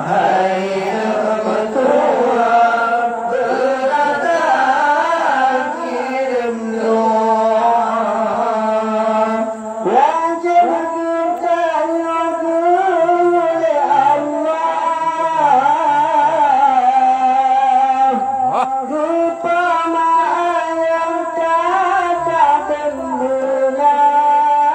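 Male voices singing Acehnese qasidah, an Islamic devotional song, through a microphone and PA. About ten seconds in the lead passes to a second singer, who begins a solo phrase with long held notes and ornamented slides.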